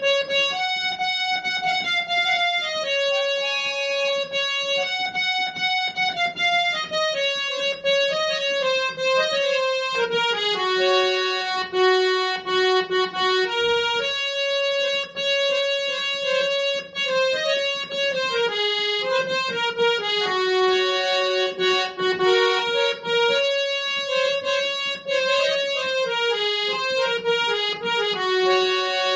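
Instrumental music: a single-line song melody played on an electronic keyboard with a reedy, accordion-like voice, moving in short steps between held notes over a faint accompaniment.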